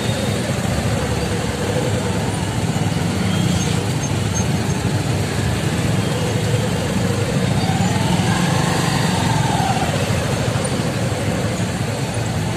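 Steady drone of motorcycle and car engines in slow-moving rally traffic. About eight seconds in, a fainter tone rises and then falls.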